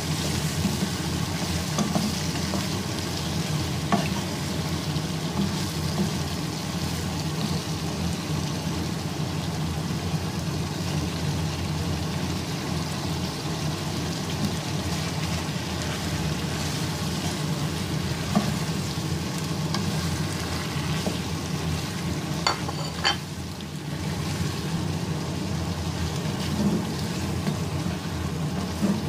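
Mutton sizzling and frying in oil in a karahi as it is stirred with a wooden spatula, with a few light knocks of the spatula against the pan.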